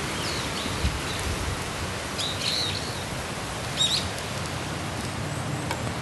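Steady rain hiss with gusty wind rumbling on the microphone, and a small bird chirping in three short bursts.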